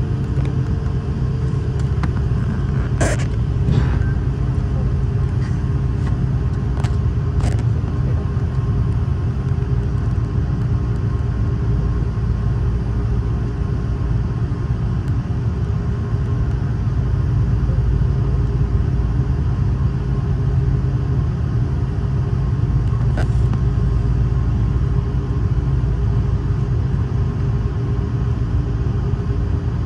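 Cabin noise inside an Airbus A330 on the ground before takeoff: a steady low rumble with the even hum of its Rolls-Royce Trent 700 engines at idle, and a few brief clicks.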